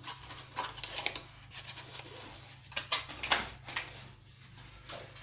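Handling noises: scattered light knocks, clicks and rustles as small items and packaging from a cardboard box are picked up and put down.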